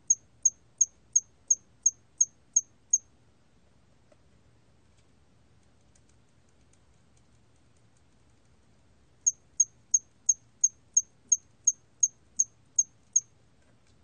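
털귀뚜라미 ('hairy cricket') singing at 27 °C: a run of short, sharp, high-pitched chirps, about three a second, for about three seconds, then a pause of about six seconds, then another run of about a dozen chirps.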